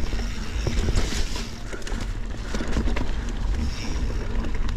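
Mountain bike ridden fast over a dirt and rock trail: steady tyre noise and rattling with scattered knocks from the bike, over a low rumble of wind on the microphone.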